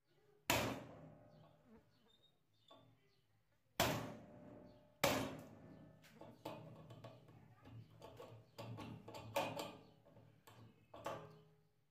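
Hammer striking a chisel set against a rivet on a steel hacksaw frame held in a vise: three hard metallic blows that ring on, followed by a run of lighter, quicker taps. The blows are cutting through the rivet to take the frame apart.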